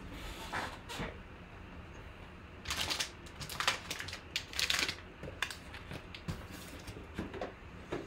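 Crinkling and rustling of a foil card pack being picked up and handled, in several short bursts about three to five seconds in.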